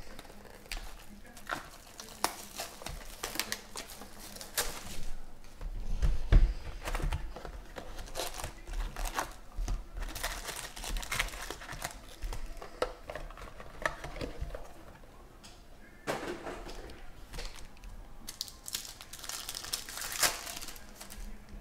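Plastic and foil packaging crinkling and tearing in irregular crackles as a box of trading-card packs is unwrapped and opened, with louder crinkling near the end as a foil card pack is torn open.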